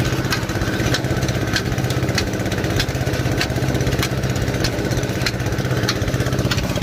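Engine-driven grain threshing machine running steadily, with a sharp tick repeating a little under twice a second, and threshed grain hissing out of the chute onto a tarp.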